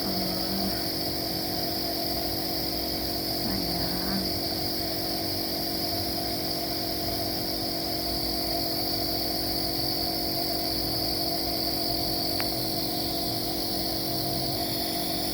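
Compressor nebulizer running steadily, a constant motor hum with a steady hiss, during an inhalation treatment for a baby's cough and cold. Two brief voice sounds break in, near the start and about four seconds in.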